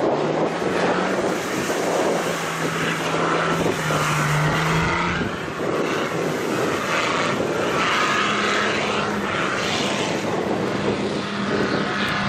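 Off-road 4x4's engine running hard at high revs, its pitch climbing slowly and then dropping off about five seconds in before holding high again, over a continuous rushing noise of water being thrown up as it drives through shallow water.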